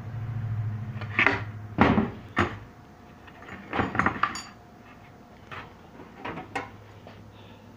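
Wooden beehive bottom boards being handled and shifted on a table saw top: a series of knocks and scrapes of wood against wood and metal, loudest in the first two and a half seconds, with a few lighter knocks later. A steady low hum fades out about a second and a half in.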